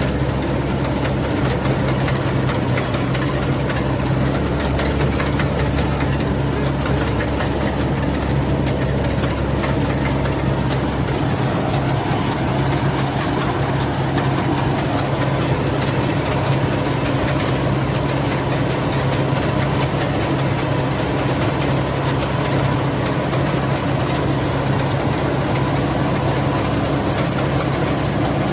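Rice combine harvester's engine running steadily with a constant deep hum; the deepest part of the rumble drops away about eleven seconds in.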